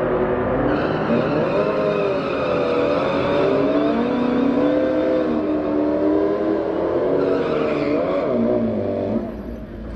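Dodge Challenger SRT Hellcat's supercharged V8 doing a burnout, the engine note wavering up and down as the rear tyres spin. The engine drops off sharply about nine seconds in.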